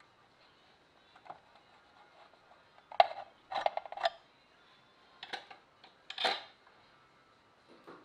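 Metal clinks and light knocks as the clutch cover plate is worked off a BMW R90S airhead engine's clutch by hand: about half a dozen separate taps, a second or so apart.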